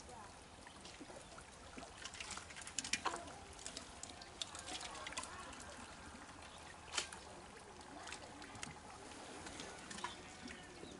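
Muddy shallow water splashing and trickling as hands grope and scoop through the mud for fish, in scattered small splashes with a cluster about two to three seconds in and a sharper splash about seven seconds in.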